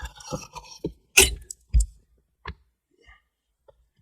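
Hand-work handling noise: two sharp knocks about a second in, then a few lighter clicks, as tools and parts are worked while fasteners are snugged up.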